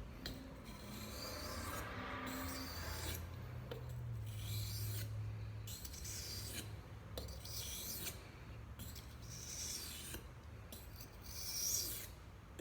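Knife blade scraping across a soft sharpening stone in repeated strokes, with short pauses between strokes.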